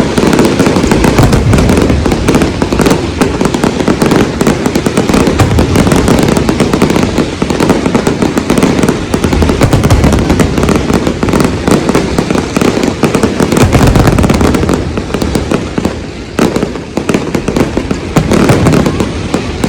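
Fireworks display going off in a dense, continuous barrage of booms and crackling, with the bangs rumbling one into the next and easing off a little near the end.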